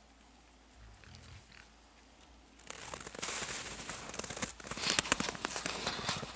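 Wild boar snuffling and rooting in the snow right at the mesh fence, close up: a crackly crunching full of sharp clicks that starts about two and a half seconds in after a quiet start.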